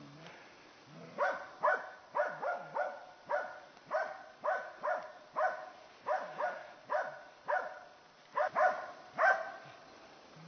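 Moose-hunting dog barking over and over, about two barks a second, starting about a second in: a dog baying at a moose.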